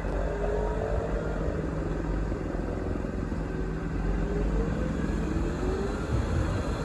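Tractor diesel engine running steadily under load while pulling a plough, with a faint whine that slowly drifts up and down in pitch.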